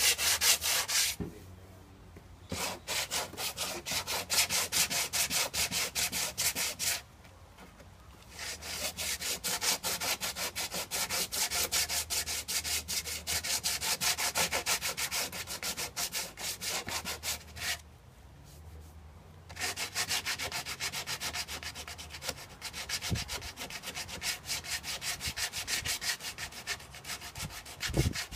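Hand sanding of a car's painted front fender: sandpaper on a hand-held pad rubbed in quick back-and-forth strokes over the panel, in four bouts with short pauses between.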